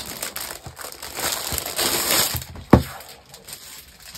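Clear plastic wrapping film crinkling and crackling as it is pulled off a large folder, ending with a single sharp knock about two-thirds of the way in.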